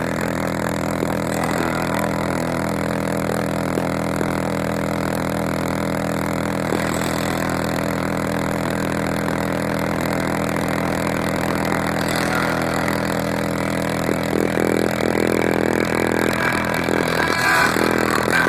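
High-output car-audio subwoofers in a ported box tuned to 30 Hz play a droning synth-rock track at very high volume inside a truck cab. The sound is steady and heavily distorted by the sheer level. From about three-quarters of the way in, short rattles and clatters from the vehicle join in.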